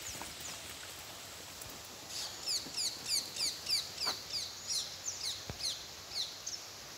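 A bird calling outdoors: a fast series of short, high, downward-slurred notes, about three a second, starting about two seconds in and lasting some four seconds, over a steady hiss of open-air background.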